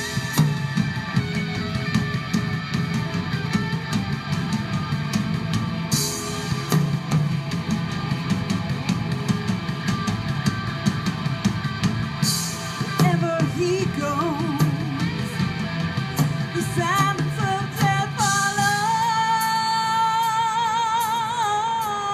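Rock band's live radio performance played back through small computer speakers: drums and electric guitar, with a woman singing with a wavering vibrato in the second half.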